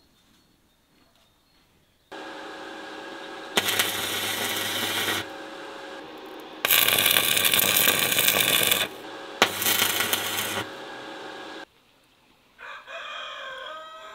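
Stick-welding arc on a steel smokehouse door frame, crackling and buzzing in three bursts of one to two seconds over a steady hum. Near the end a rooster crows.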